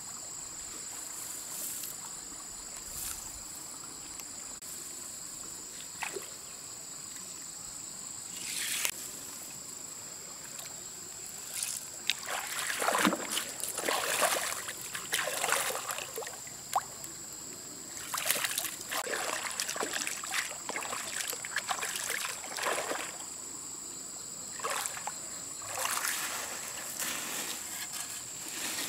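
Water splashing and sloshing in a shallow stream as hands work in it, in irregular bursts mostly in the middle stretch. Under it runs a steady high chirring of insects.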